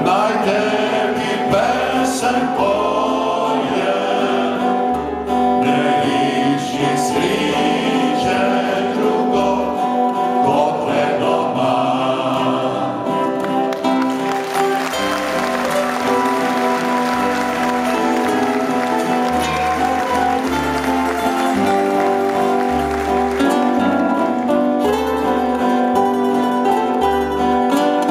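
Klapa male vocal group singing in close harmony with a lead voice, accompanied by strummed mandolin and acoustic guitar. A spell of audience applause runs under the music for several seconds in the middle.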